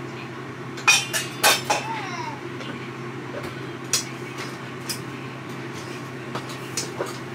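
Cookware and utensils clanking and clinking: a quick cluster of sharp knocks about a second in, one ringing briefly, then scattered lighter clicks. A steady low hum runs underneath.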